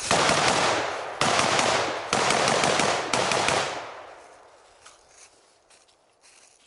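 Semi-automatic M4-pattern carbine in 5.56 firing rapid shots in several quick strings during the first three and a half seconds, then the firing stops.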